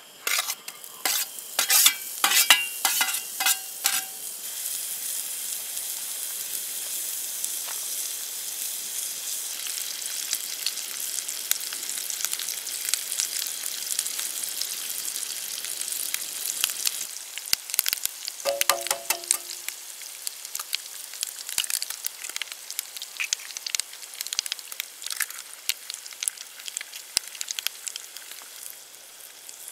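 Food frying in oil in a cast iron skillet on a camp stove: a steady crackling sizzle, with sharp spattering pops in the first few seconds. A little past halfway the sizzle breaks briefly, and there is a short clink.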